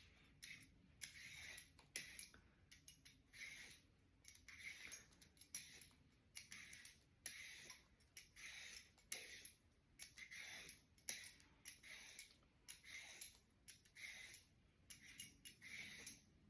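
Faint scraping of a stainless-steel vegetable peeler blade being drawn along a cucumber's skin, in short repeated strokes about once a second.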